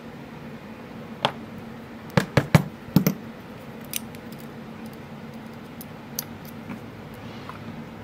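Small sharp clicks and taps of brass padlock parts and a hand tool as the lock is taken apart, with a quick run of several clicks between about two and three seconds in and a few single clicks either side.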